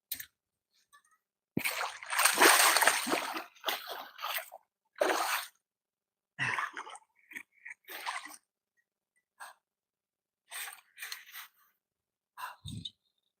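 A hooked carp thrashing in shallow water at the bank: irregular bursts of splashing, the biggest about two seconds in, then shorter splashes.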